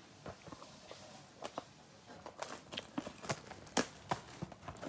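Soft, scattered clicks and crinkles of a cardboard NBA Hoops trading-card box being handled and opened.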